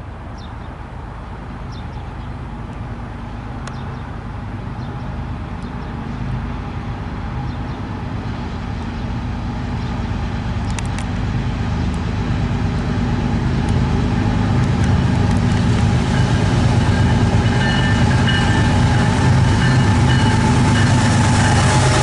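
Diesel train approaching, its engine rumble growing steadily louder.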